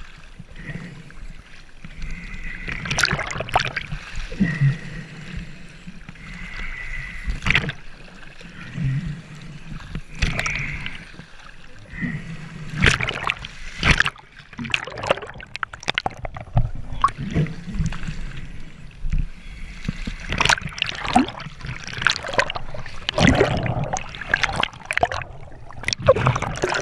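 Scuba diver breathing through a regulator underwater: a hiss on the inhale, then irregular gurgling bursts of exhaled bubbles.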